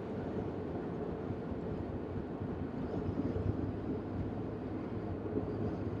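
Steady low rumble of road, tyre and engine noise inside the cabin of a moving car.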